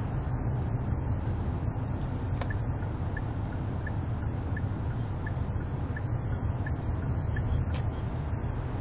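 Steady low road and engine rumble inside the cabin of a Hyundai Santa Fe (DM) cruising at about 65 km/h. From about two and a half seconds in, a faint, regular tick comes roughly one and a half times a second for several seconds.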